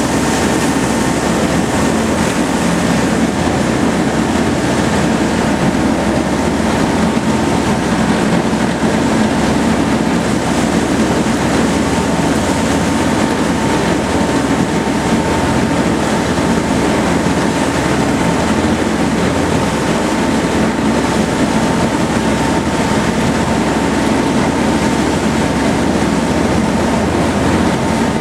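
Steady machinery drone with a low rumble, a rushing noise and a constant high whine, unchanging throughout.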